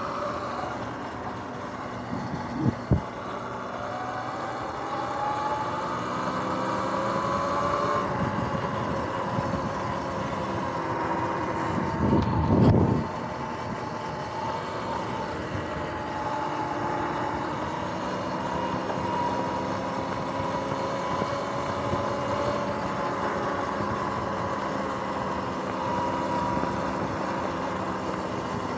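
Sur-Ron X electric dirt bike's motor and drive whining while riding, the pitch rising and falling with speed. A short knock comes about three seconds in, and a low rumble, the loudest moment, around twelve seconds in.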